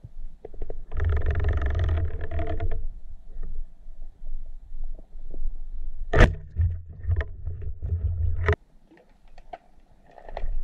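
Underwater noise picked up by a submerged camera as a freediver moves with a pole spear: low rumbling with scattered knocks. A very sharp loud knock comes about six seconds in, and another at about eight and a half seconds, where the rumbling stops.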